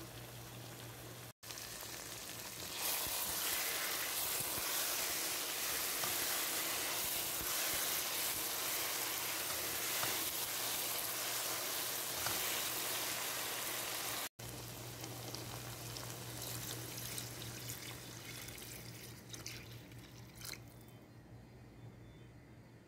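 Water pouring into a hot pot of frying mutton masala, a loud steady hiss of pouring and sizzling that sets in about three seconds in. After a cut, a quieter hiss of the mutton gravy bubbling, with a few small pops near the end.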